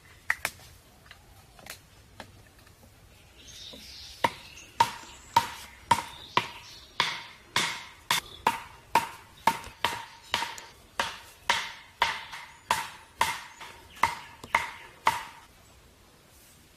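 Steady rhythmic chopping, about two strikes a second, each strike ringing briefly; it starts about four seconds in and stops about a second and a half before the end, after a few lighter knocks.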